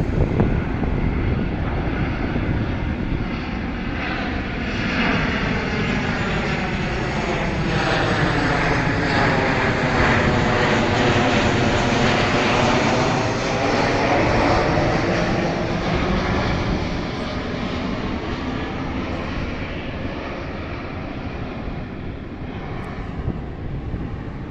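CFM56 turbofan engines of a Boeing 737-700 airliner flying past, their jet noise building to a peak about halfway through and then fading, with a sweeping whoosh as it goes by.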